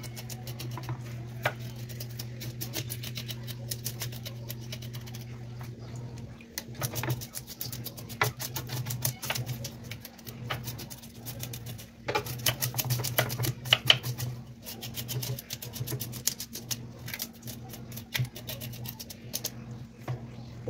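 Kitchen knife scraping the scales off a whole mojarra on a plastic cutting board: rapid runs of scratchy clicks in bursts, busier from about six seconds in, over a steady low hum.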